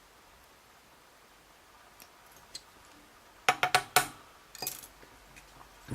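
Small metal lock parts clicking and tapping as the pins and drivers are taken out of a disassembled pin-tumbler lock: a quick run of four sharp clicks about three and a half seconds in, then a few lighter ones.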